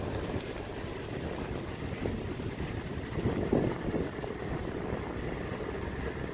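Kubota tractor engine running steadily, with a brief louder swell about three and a half seconds in.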